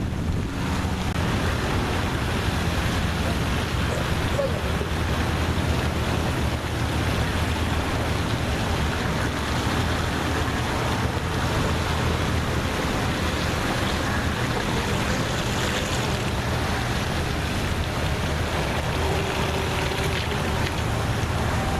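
Steady rushing noise of wind on the microphone and water, over a low steady hum.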